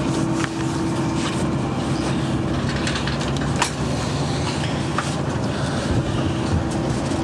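Steady running noise of a passenger train, heard from inside the carriage, with a low steady hum and a few sharp clicks.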